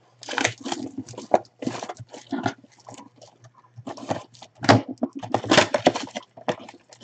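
Clear plastic shrink-wrap crinkling and tearing as it is pulled off a small cardboard box, in a run of irregular crackles; the loudest come a little under five seconds in and again about half a second later.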